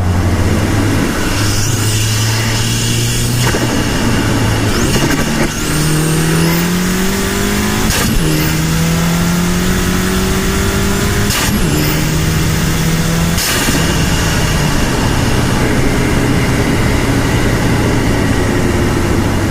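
Stage 2 tuned, decatted Mk6 Volkswagen GTI's turbocharged 2.0 TSI four-cylinder under load, its engine note climbing in pitch and dropping back at each gear change, with a sharp crack at several of the shifts. In the second half it settles into a steadier, lower note.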